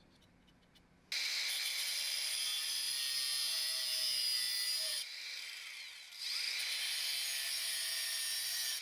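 An electric motor-driven tool switches on about a second in and runs steadily and loudly, easing off for about a second in the middle before running again.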